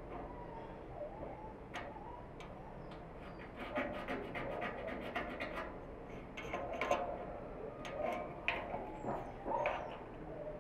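Short scratches and clicks of a pointed metal scribe scoring a line into the paint of a steel barrel, under a ruler held against it. Birds call in the background several times, with a few higher chirps near the end.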